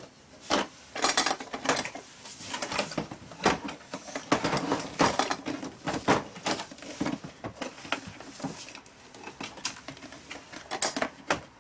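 Hard plastic clattering and knocking from a Keter Connect cantilever organizer box as its trays are swung up and open, the small removable organizer bins rattling in them. Irregular clicks and knocks, some sharper than others.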